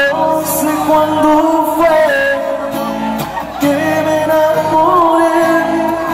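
Male voice singing a Spanish-language ballad live, accompanied by his own acoustic guitar.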